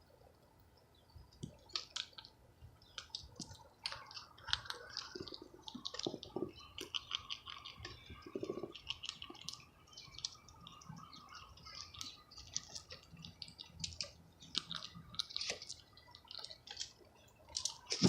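A squirrel gnawing at a nut, an irregular run of small crunching clicks that come in quick clusters with short pauses between them.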